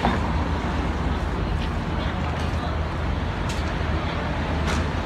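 City street traffic noise: a steady low rumble of road traffic, with a few faint clicks.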